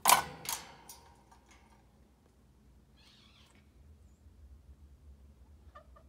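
A parrot's loud call followed by two shorter calls, all within the first second, then a faint rustle about three seconds in.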